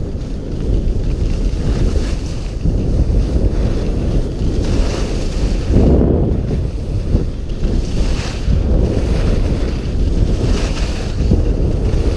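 Wind buffeting a GoPro's microphone during a downhill ski run, a steady loud rumble. Over it, the hiss of skis sliding on snow swells every few seconds.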